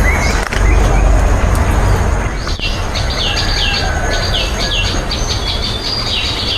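A bird calling repeatedly, a string of short chirps that each drop in pitch, about two a second, starting a couple of seconds in. Under it runs a steady low rumble, strongest at the start.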